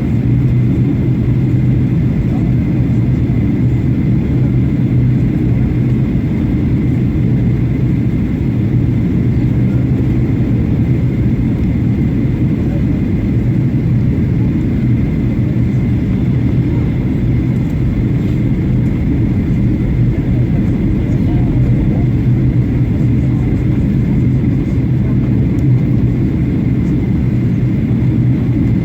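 Steady cabin noise inside a Boeing 737-800 on its descent: the low drone of its CFM56 turbofan engines and air rushing past the fuselage, with a constant low hum and no change in level.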